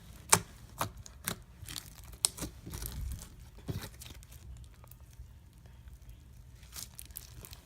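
Orange foam slime with foam beads squished and worked by hand, giving sharp crackling and popping clicks, thick in the first few seconds and thinning out toward the end.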